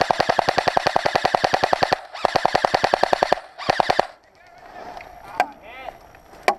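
An airsoft gun firing on full auto at about fifteen shots a second: one long burst, then a shorter burst and a brief one, ending about four seconds in. Two single sharp snaps follow near the end.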